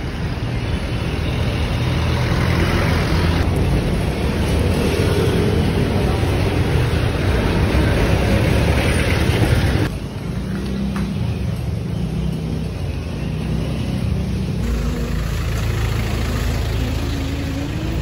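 Busy city street traffic noise: the steady mixed sound of vehicle engines and tyres, dropping quieter suddenly about ten seconds in.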